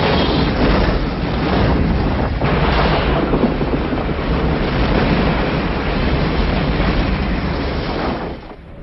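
Film sound effects of meteor-impact explosions: a loud, continuous rumble of blasts that drops away near the end.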